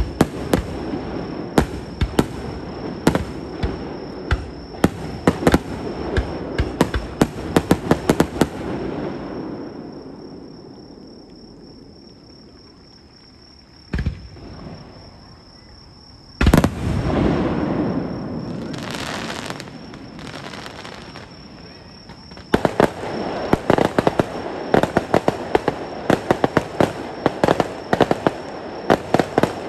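Aerial fireworks display: dense, rapid crackling reports that die away about a third of the way in. About halfway through come a single bang and then a louder bang with a long rumbling tail, and the dense crackling starts again for the last quarter.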